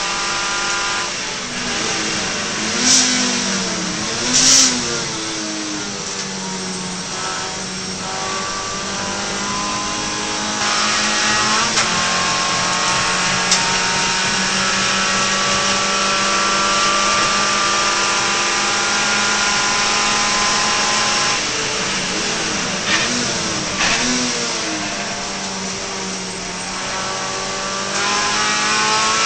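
Suzuki Swift race car's four-cylinder engine heard from inside the cabin under racing load. The revs rise and fall through the gears, with engine braking and downshifts about two to five seconds in and again about twenty-two to twenty-six seconds in, long climbs in between, and a gear change near the end. Two short, sharp, loud noises come about three and four and a half seconds in.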